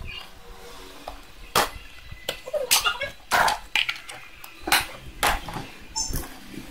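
Clear plastic food storage containers and their lime-green snap-on lids being handled, clacking and knocking against each other in a series of sharp, separate clicks, about eight or nine of them.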